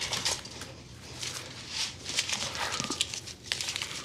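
Rustling and small knocks of objects being handled and moved about on a desk, a run of short scuffs and clicks.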